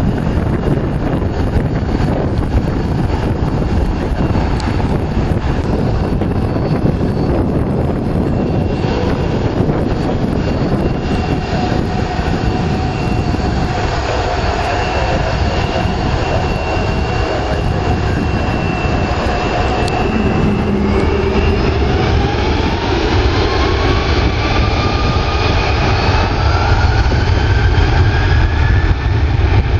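Airbus A330-300 jet engines running on the runway under a heavy low rumble of wind on the microphone; about halfway through a whine rises steadily in pitch and the sound grows louder as the engines spool up for takeoff.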